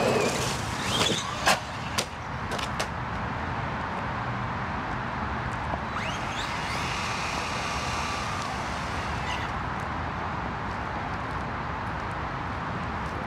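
Brushless electric motor of a 1/8-scale ARRMA Typhon RC buggy whining, rising in pitch about six seconds in, holding, then falling away about three seconds later, over a steady rushing noise. A few sharp knocks sound in the first three seconds.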